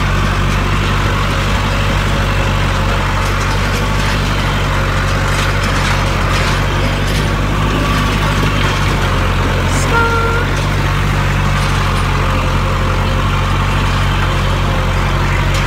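Tractor engine running steadily as the tractor drives along, a constant low drone, with a brief higher-pitched tone about ten seconds in.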